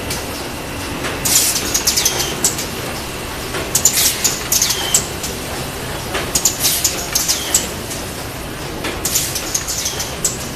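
XY-550 automatic case making machine running: a steady mechanical hum with clusters of sharp, high clicking and squeaking that repeat about every two and a half seconds in a regular cycle.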